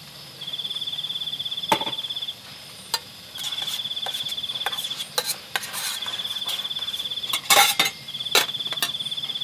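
A cricket trilling in repeated bouts of about two seconds each, with short pauses between. Over it, a spoon and camping pots clink now and then, most loudly in a quick clatter about three-quarters of the way through.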